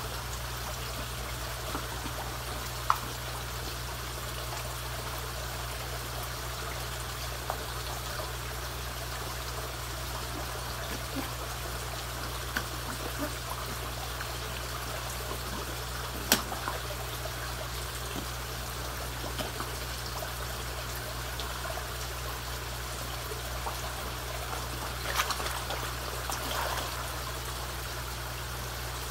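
Water trickling and running steadily into a koi pond, with a low steady hum underneath. A few brief sharp sounds at the surface stand out, with a small cluster of them near the end.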